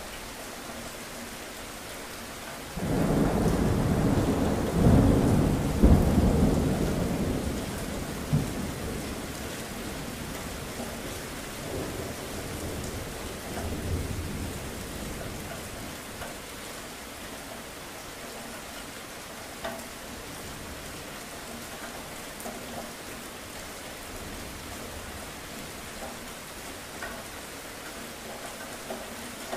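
Steady rain with a thunderclap breaking in about three seconds in: a loud rumble with a couple of sharp cracks that fades over several seconds. A fainter roll of thunder follows a little later, then the rain goes on alone.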